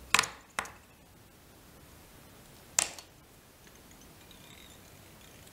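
Three light, sharp clicks of fly-tying tools being handled at the vise: two close together at the start and one about halfway through, with quiet room tone between them.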